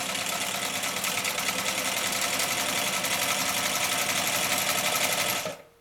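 Chaika-134A zigzag sewing machine running at speed and stitching a zigzag seam through cloth, a fast, even needle rhythm. It stops suddenly near the end.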